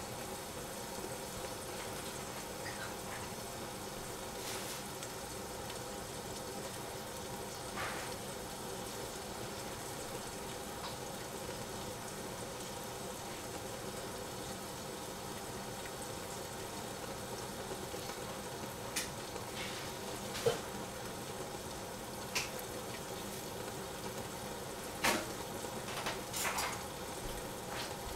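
Vegetables cooking in a covered saucepan on a gas flame, simmering with a steady hiss. A few sharp pops or ticks come in the second half.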